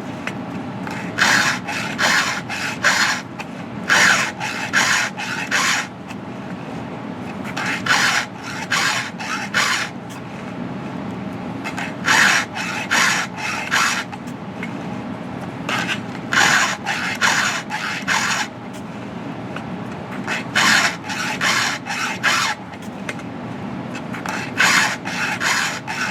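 Chainsaw chain being sharpened with a hand file: groups of about five quick rasping strokes across a cutter, then a short pause, repeating roughly every four seconds.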